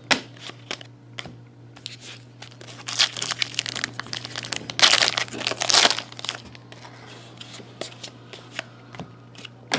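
Foil trading-card pack torn open by hand: tearing and crinkling of the foil wrapper in a short burst about three seconds in and a longer, louder stretch around five to six seconds in.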